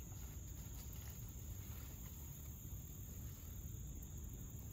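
Crickets or other insects chirring in a steady high-pitched drone, over a continuous low rumble.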